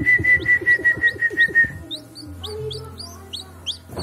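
A pulsing whistled tone over background music for the first half, then a hatching chick peeping from inside its shell in short high rising chirps, several a second.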